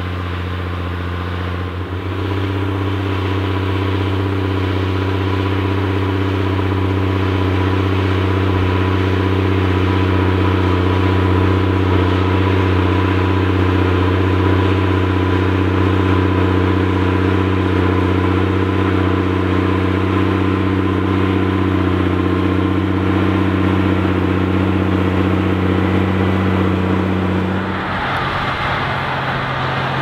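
Fendt 512C tractor's diesel engine running steadily under load while pulling a plough, a deep even drone. Near the end the sound changes abruptly to a different tractor engine.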